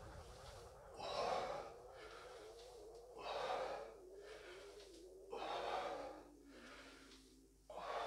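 A man breathing hard while doing kettlebell goblet squats: four heavy breaths about two seconds apart.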